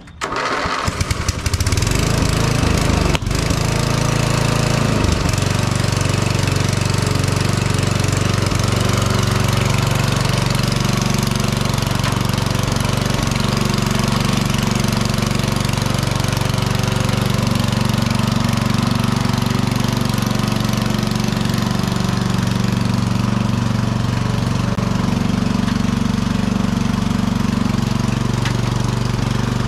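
Small Briggs & Stratton engine of an old riding lawn mower catching abruptly and then running steadily while the mower is driven.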